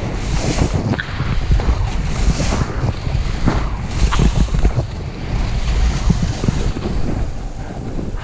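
Wind buffeting the microphone during a fast downhill run, mixed with the hiss and scrape of a snowboard sliding over snow, broken by irregular knocks and scrapes.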